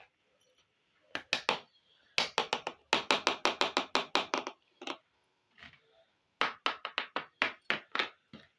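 Quick runs of sharp knocks, about five or six a second in bursts of several strokes, like small-scale chopping on a little cutting board.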